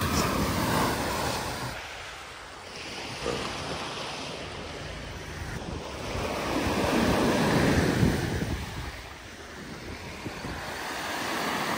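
Small lake waves breaking and washing up a sandy beach, in surges that swell about a second in and again around seven seconds, with wind rumbling on the microphone.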